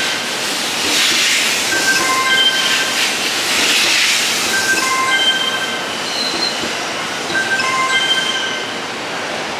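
The E001-series TRAIN SUITE Shiki-shima rolling past along the platform: a steady rush and rumble of wheels on rails, loudest in the first half. Over it, a short chime phrase of a few high notes repeats about every two and a half seconds.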